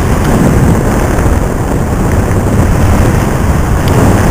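Wind buffeting the microphone over the rush of water along the hull of a Moody 42 sailing yacht under sail, making about six knots in roughly 15 knots of southwesterly wind. A loud, steady rumbling noise with no letup.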